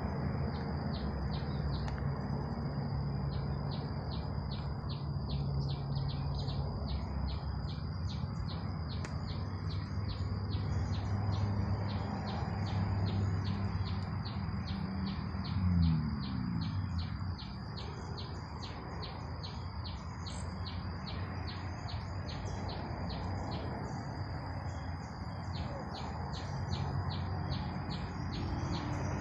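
High-pitched chirping from a small animal, repeating rapidly and evenly, about four times a second, without a break, over a steady low outdoor rumble that swells briefly about halfway through.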